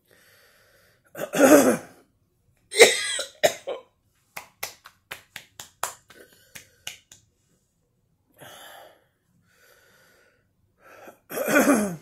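A woman's chesty cough into her fist: a hard cough about a second in and another just after, then a quick run of about ten short, sharp sounds, and a final harsh cough near the end.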